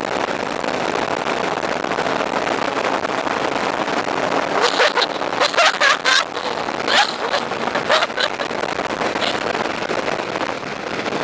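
Steady rush of wind and road noise from a motorcycle at highway speed, with a few short high-pitched cries about halfway through.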